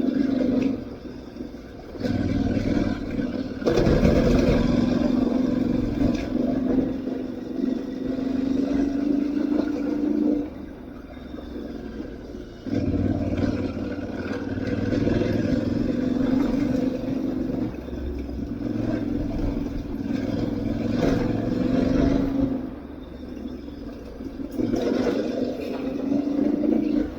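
Aprilia Tuareg 660's parallel-twin engine pulling under throttle off-road. Its note climbs slowly, then drops several times as the throttle is rolled off, before it picks up again.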